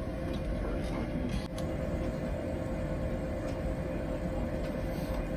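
Steady cockpit noise of an Airbus A220 on the ground: an even low rumble and hiss from the running aircraft, with a few faint clicks.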